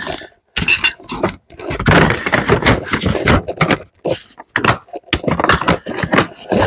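Packing gear into a plastic storage tote: rustling and a series of irregular knocks and plastic clatter as things are moved about and the tote's lid is set on and pressed shut.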